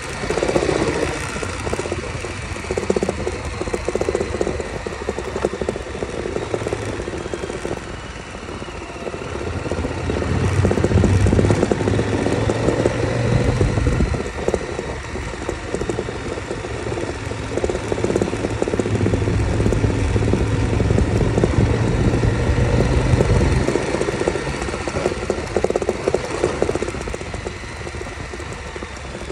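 KTM 1190 Adventure's V-twin engine running as the bike rides along a dirt road, its note swelling louder twice as the throttle is opened, over a steady rush of wind and road noise.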